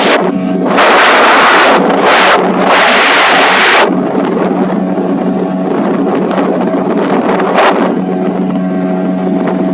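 Motorboat engine running at a steady pitch. Loud rushing noise lies over it for about the first four seconds, then drops away.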